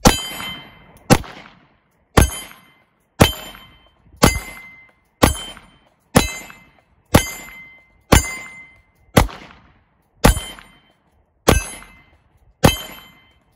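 Thirteen shots from a 9mm SIG P320 pistol, about one a second. Most are followed by a short metallic ring from the AR500 steel plate behind the paper when the bullet strikes the A/C zone; a couple that miss the zone have no ring.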